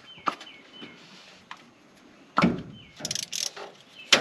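Socket ratchet clicking and metal tools knocking as spark plugs are being loosened, with a louder knock about two and a half seconds in and a quick run of ratchet clicks near the end.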